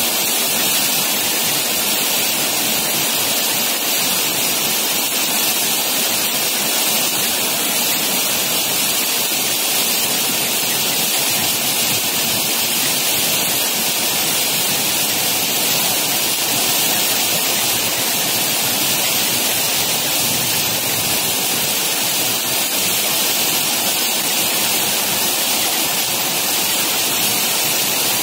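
Heavy rain pouring down in a steady, dense hiss, with no letup.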